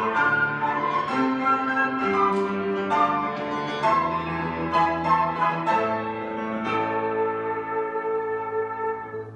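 Flute ensemble with piano accompaniment playing, the notes changing about every half second, then holding one long closing chord from about seven seconds in that slowly fades.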